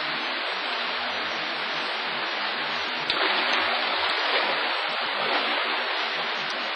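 Steady hiss with no pitch, like running water or recording noise, with a faint click about three seconds in, after which it is slightly louder.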